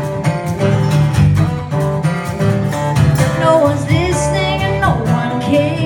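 Live band music from acoustic guitar, electric guitar, bass guitar and cajón, with a steady beat.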